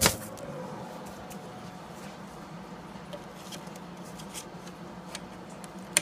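Steady hum of a running Texas Instruments Professional luggable computer's fan and power supply. A sharp knock comes right at the start and another near the end, with a few faint clicks between as the case is handled.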